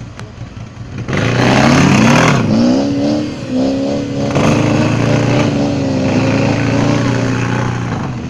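Off-road vehicle engine revving hard under load: it opens up about a second in, climbs in pitch and then holds high and steady, easing off near the end.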